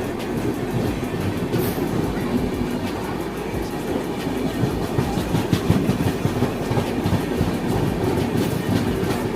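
Passenger train running at speed: a steady rumble of wheels on rails with clicks as wheels pass over rail joints.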